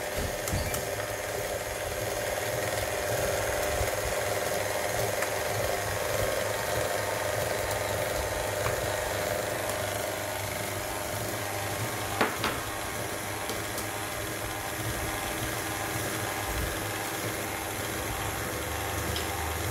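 KitchenAid Artisan stand mixer running steadily on a low speed, its motor and gears whirring as the beater turns through creamed butter and sugar. Two short sharp clicks come about twelve seconds in.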